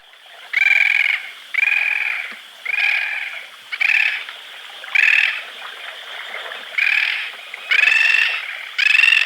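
Bridled tern calling repeatedly, about one call a second, each call about half a second long, with a longer pause a little past the middle.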